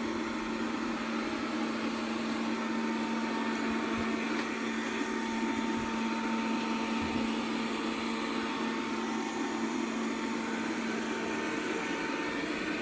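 Robit V7S Pro robot vacuum cleaner running steadily: a constant motor hum with a high whine over a wide hiss of suction, plus a few faint taps.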